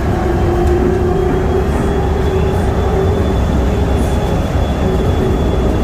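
DFW Skylink automated people-mover train running between stations, heard from inside the car: a loud, steady rumble with an even tone riding on top.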